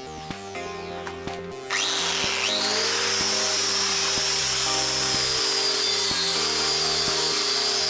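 Electric power tool's motor switched on about two seconds in, its whine rising in pitch over about a second and then running steadily at full speed, with music playing underneath.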